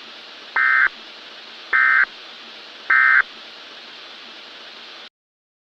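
Three short Emergency Alert System SAME end-of-message data bursts, each a brief buzzy digital two-tone chirp, about a second apart over a steady hiss; the transmission signals the end of the alert. The hiss cuts off suddenly near the end.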